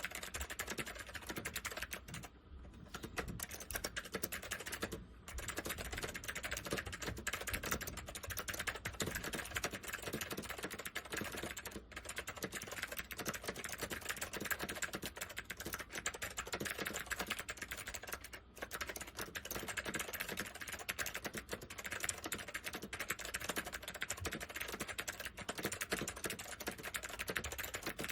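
Northgate OmniKey 101 keyboard with waxboiled Alps SKCM White switches being typed on: a fast, continuous stream of clicky keystrokes, with brief pauses about two and a half and five seconds in.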